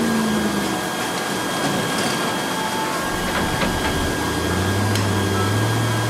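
Steady rushing noise of a lit commercial gas burner in a working kitchen, under a low machine hum that rises near the end. A few light knocks come about halfway through.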